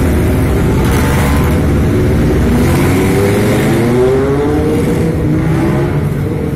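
A motor vehicle engine running close by over a steady low rumble, its pitch slowly rising and falling as it revs.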